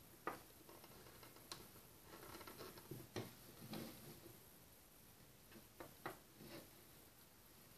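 Faint, scattered clicks and small rustles of hands working yarn loops on the plastic pegs of a round knitting loom, the sharpest click just after the start and another about six seconds in.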